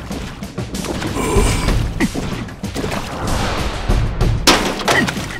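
Cartoon music with slapstick sound effects: a run of hits and crashes, the loudest about four and a half seconds in.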